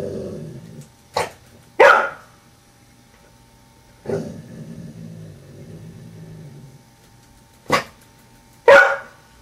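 Blue-nose pit bull growling low and barking: a growl fades out about a second in, then a short yip and a loud bark, a growl of about three seconds, and another short yip and loud bark near the end.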